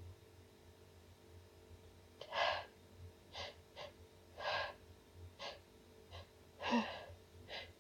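A woman's short, gasping breaths, about eight of them at uneven spacing, the strongest about two and a half seconds in and near seven seconds in: the catching inhalations of a sneeze building up.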